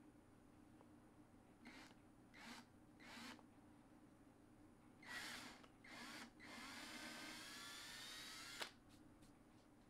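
Cordless drill working into wood: three short trigger bursts, then two longer ones, then a steady run of about two seconds that rises in pitch as it spins up and cuts off with a sharp click.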